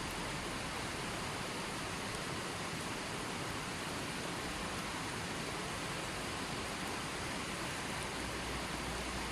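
Running water flowing in a steady, unbroken rush, with no other sound.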